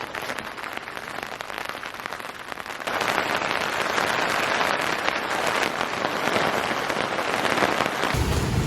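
Rain pattering in dense crackling drops, heavier from about three seconds in; music comes in near the end.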